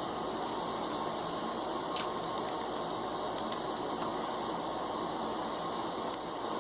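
Butane soldering iron hissing steadily while joints are soldered, with a few faint light clicks.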